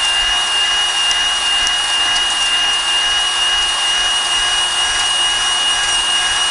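Electric drill spinning a stone cylinder hone inside an ATF-lubricated engine cylinder to deglaze the walls: a steady high whine with a scraping hiss.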